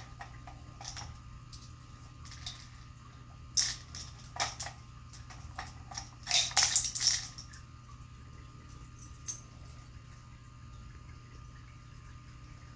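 Plastic cylinders of a cat food puzzle toy clattering and rattling as a cat paws them round on their rod, in short bursts about three and a half and four and a half seconds in, then a louder run of rattles between about six and seven seconds.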